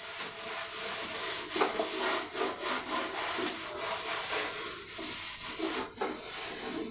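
Repeated rubbing strokes of hand-scrubbing the bare wooden surface of a nightstand during washing.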